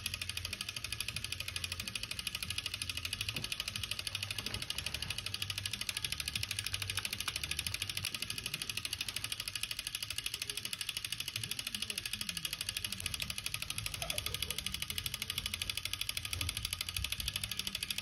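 Homemade table fan with iron-core copper-wire electromagnets running on 220 V alternating current: a rapid, even mechanical ticking over a low steady mains hum.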